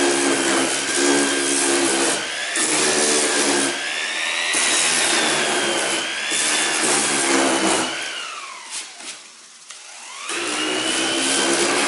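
Bosch random orbital sander running against polyester putty on a plastic car bumper: a steady motor whine over a rough scuffing hiss. About eight seconds in the motor winds down, then speeds back up to full running.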